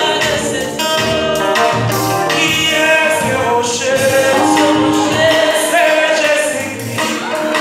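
Live gospel worship music: a band with electric guitar and bass guitar playing a steady groove under singing voices.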